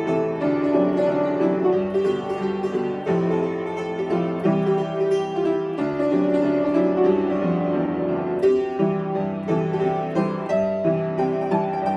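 Solo piano playing a children's song arrangement at a steady tempo, melody over changing chords.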